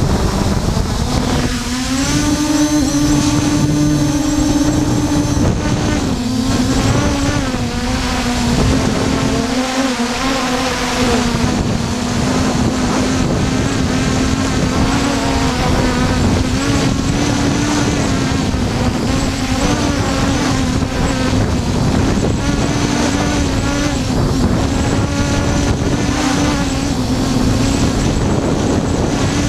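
Force1 F100 quadcopter's motors and propellers whining steadily in flight, the pitch wavering up and down, with wind noise rumbling on the microphone.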